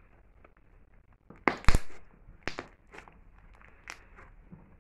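Pink slime stretched and squeezed by hand, its trapped air pockets popping with sharp crackles. The loudest cluster of pops comes about a second and a half in, followed by a few smaller pops.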